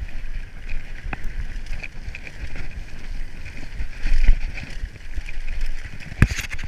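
Giant Reign full-suspension enduro mountain bike ridden fast over a dirt trail: wind buffeting the microphone over tyres rumbling on the dirt. A sharp knock comes about a second in and a louder one near the end, as the bike hits bumps.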